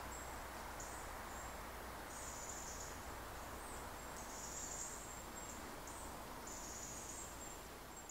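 Forest ambience: a soft steady hiss with insects chirping, a string of high, buzzy chirps each lasting about half a second to a second.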